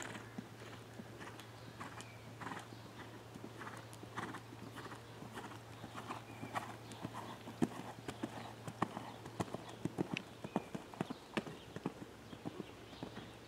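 Hoofbeats of a Holsteiner mare cantering on sand arena footing, a steady rhythmic clip-clop. The strikes get sharper and louder from about halfway through as she comes toward the fence.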